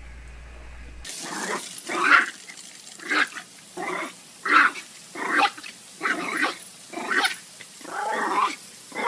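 A dog making a quick run of short, pitched calls, about one every two-thirds of a second, starting about a second in after a low hum cuts off.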